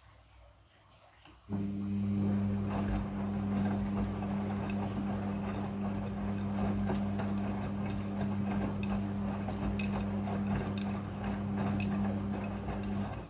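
Midea front-loading washing machine tumbling its drum during the wash. A steady motor hum with churning noise and light clicks starts suddenly about a second and a half in and stops just before the end.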